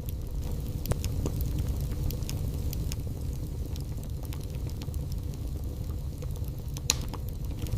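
Wood fire burning in a fireplace: a steady low rumble with scattered sharp crackles and pops, the loudest pop near the end.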